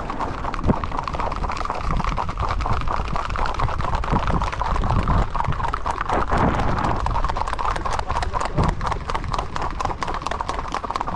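Horses' hooves clip-clopping on asphalt in rapid, even beats, the ridden horse close by and others ahead.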